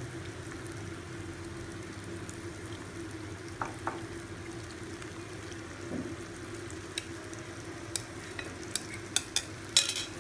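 Marinated prawns going into a hot kadai of fried masala and frying with a low sizzle, with a steady faint hum under it. Sharp taps of the bowl and utensils against the pan, several of them near the end.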